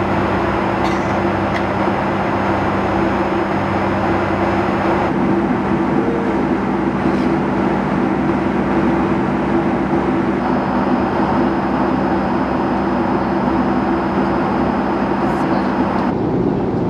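Steady cabin noise of a Boeing 757 jet airliner in cruise: a loud, even rush of airflow and engine noise with a steady low hum under it. The tone of the noise changes abruptly about five seconds in and again near the end.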